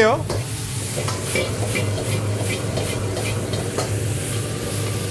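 Garlic chives and ginger sizzling in a carbon-steel wok over a high gas flame. A metal ladle scrapes and tosses them in short strokes about every half second, over a steady low hum.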